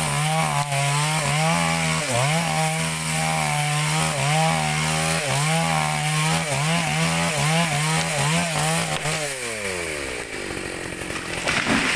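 Ogawa OG6818 chainsaw cutting a tree trunk at high revs, the engine pitch dipping and recovering over and over as the chain loads in the wood. About nine seconds in the throttle is let off and the engine winds down toward idle.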